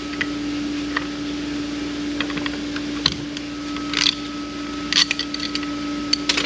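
Light clicks and clinks of Ford AOD transmission clutch plates and steel parts being handled on the bench, a few sharper ones about three, four and five seconds in, over a steady hum.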